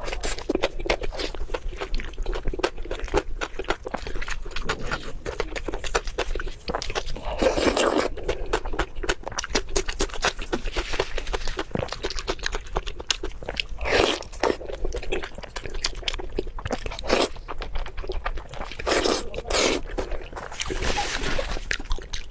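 Close-miked eating sounds: a steady stream of chewing and crunching clicks with wet mouth noises, and a few louder, longer bites along the way.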